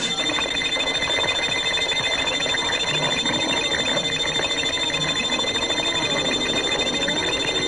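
Electronic sci-fi sound effect: a rapid, continuous ringing trill like an alarm-bell rattle over a steady high tone.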